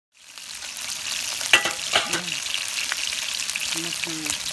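Chicken thighs and butterbur stalks sizzling in oil in a frying pan, a steady crackling hiss that fades in at the start, with sharper pops about one and a half and two seconds in.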